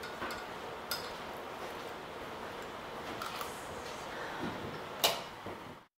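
A few light clicks and clinks of kitchenware over quiet room tone, the loudest about five seconds in. The sound cuts off just before the end.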